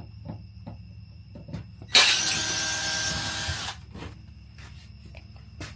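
Power drill running in one burst of about a second and a half, driving out screws, with small clicks and taps of handling before and after.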